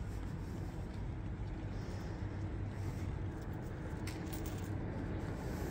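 Steady outdoor urban background noise: an even low rumble with a faint hiss over it.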